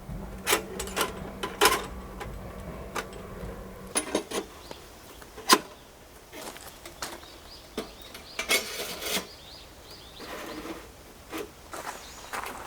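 Irregular knocks and clicks, like objects being handled, with a low steady hum that stops about four seconds in.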